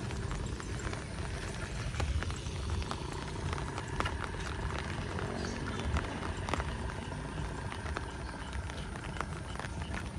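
Rain falling steadily, with wind rumbling on the microphone and sharp taps scattered irregularly through it.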